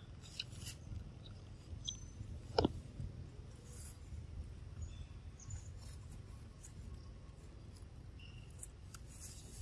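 Dry leaves crackling and rustling as a baby macaque handles and mouths a large dry leaf, with scattered small crackles and one sharper snap a little over two seconds in, over a steady low rumble.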